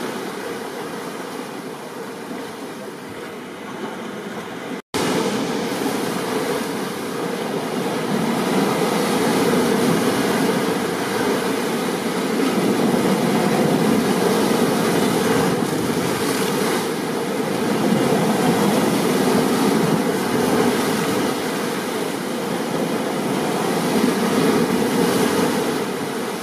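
Steady rushing of rain and stormy ocean surf, swelling and easing. About five seconds in it cuts out for a split second, then comes back a little louder.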